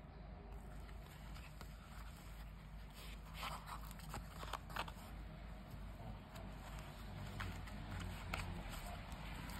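Bellroy leather travel wallet being handled: faint rustling and scraping of leather and fabric lining under the fingers, with a few small clicks, busiest a few seconds in, over a low steady hum.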